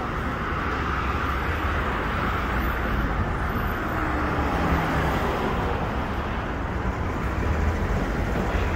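Road traffic on a city street: motor vehicles passing in a steady rumble of engines and tyres.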